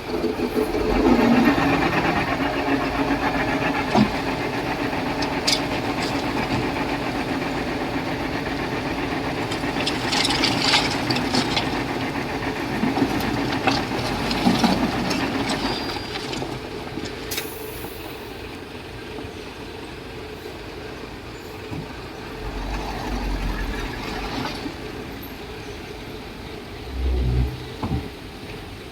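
Diesel engine of a Komatsu D31P crawler bulldozer running under load, louder for the first half and then easing off to a lower level. A few short knocks are heard along the way.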